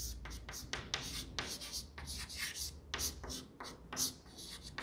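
Chalk writing on a chalkboard: a quick, irregular run of short scratching strokes and taps as letters are written.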